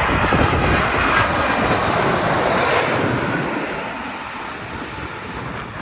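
Twin-engine widebody jet airliner on final approach with gear down, its engine noise loud as it passes low overhead, then fading steadily over the last two seconds as it moves away toward the runway.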